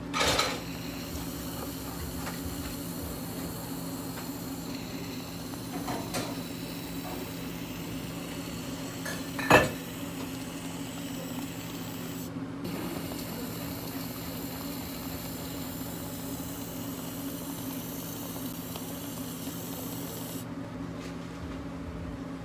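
Light clinks and knocks of ceramic mugs and a metal whipped-cream dispenser over a steady low hum of cafe equipment. One sharp knock about ten seconds in is the loudest sound.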